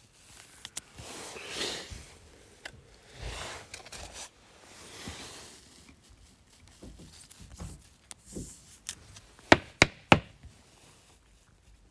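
A trading card sliding into a thin plastic penny sleeve and being handled, with soft swishing rustles. Near the end come three sharp knocks in quick succession as the card is put away.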